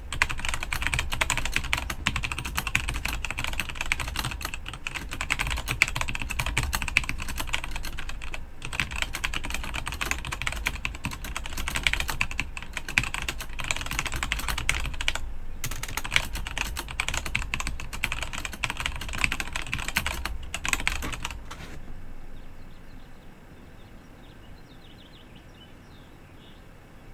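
Fast touch typing on a Rantopad MT mechanical keyboard with Gateron Black linear switches: a dense, irregular stream of keystroke clacks with a few brief pauses. The typing stops about 22 seconds in, leaving a faint hiss.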